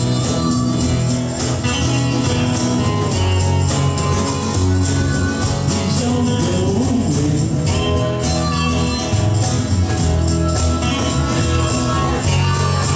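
Live acoustic band playing: strummed acoustic guitars and electric bass, with a harmonica played into a vocal microphone at the start and again near the end, over a jingling hand percussion part.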